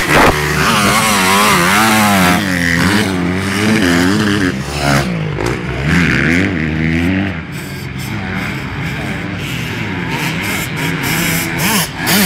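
Motocross dirt bike engines revving, the pitch rising and falling again and again as the bikes pull away. About seven seconds in, the engine sound drops in level and turns rougher and less clear.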